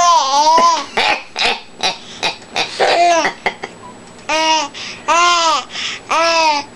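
A baby babbling in high-pitched coos. One long call comes at the start, then a few short sounds, then three rising-and-falling calls of about half a second each near the end.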